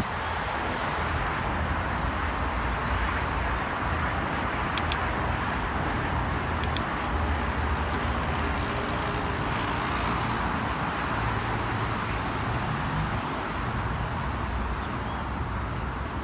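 Steady road traffic noise, an even hiss of passing cars, with a couple of faint light clicks about five and seven seconds in.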